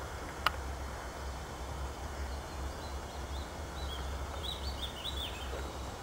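Quiet lakeside ambience: a steady low rumble, a single sharp click about half a second in, and a few short high bird chirps from the middle toward the end.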